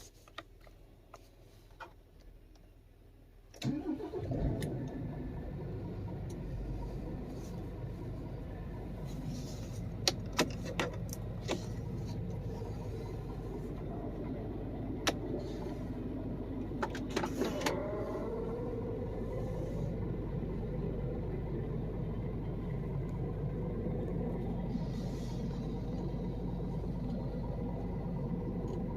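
Scania truck's diesel engine starting about four seconds in, then idling steadily. A few sharp clicks and knocks sound over it in the middle.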